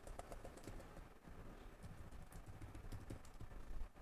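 Laptop keys on a newly replaced Dell Inspiron 15 7567 keyboard being pressed one after another, giving faint, quick, irregular clicks, several a second. The keys are being tested after the replacement.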